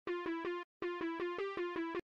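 Electronic background music: a quick run of short, evenly repeated synth notes, about six a second, broken by a brief gap just over half a second in.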